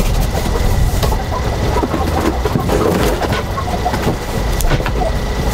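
Cardboard boxes being handled and shoved into a wooden chicken coop: repeated scraping, rustling and light knocks over a steady low rumble.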